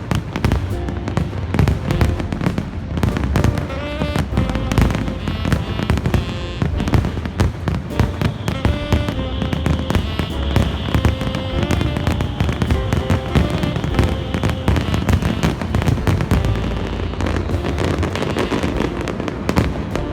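Fireworks bursting in rapid, continuous succession, many sharp bangs and crackles, over music with held notes.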